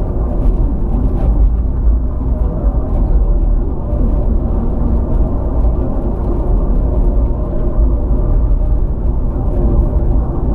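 Three-door Land Rover Freelander driving along a country road: a steady engine drone over a heavy, even low road rumble.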